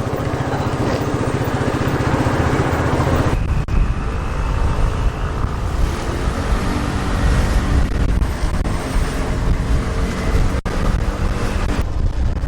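Motor scooter engine running steadily while riding, with road noise, broken by a couple of abrupt cuts.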